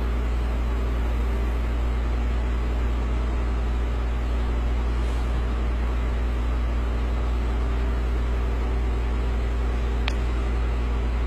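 Steady low mechanical hum, heaviest in the deep bass with a few fixed tones above it. A single click sounds near the end.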